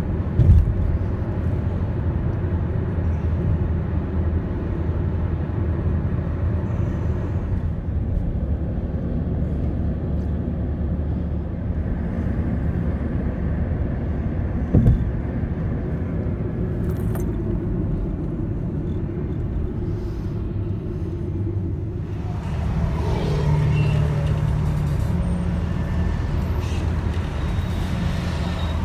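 Road and engine noise heard from inside a car driving at highway speed: a steady low rumble and hum. Its character shifts abruptly twice, and there is a single short thump about fifteen seconds in.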